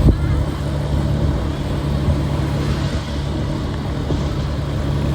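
Street traffic: vehicle engines running with a steady low hum, and a single sharp knock right at the start.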